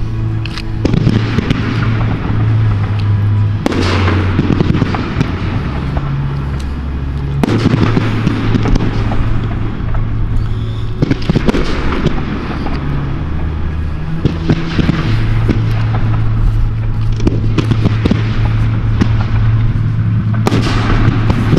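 Fireworks display going off close by: continuous crackling and popping, with louder surges of bangs and rushing bursts about four, seven, eleven and twenty seconds in.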